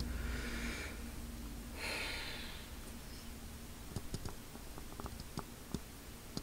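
Two soft breaths or huffs, each under a second, then a few faint light clicks near the end.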